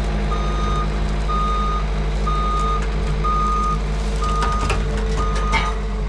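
Skid steer's backup alarm beeping steadily, about one beep a second, over the machine's engine running. A few sharp knocks come in the second half.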